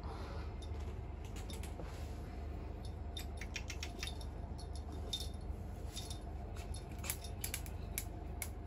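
Scattered light clicks and taps, irregular and thickest in the second half, from a cat playing with a small toy ball on a laminate floor.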